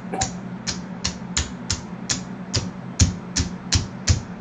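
A steady, evenly spaced series of sharp clicks, about two and a half a second, over a low steady hum.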